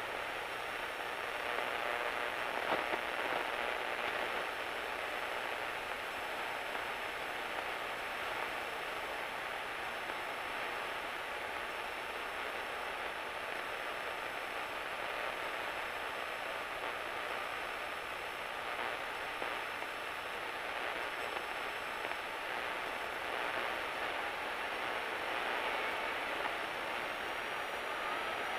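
Steady, hiss-like cockpit noise of a Cessna 172 Skyhawk descending on its approach, with a faint steady tone running through it.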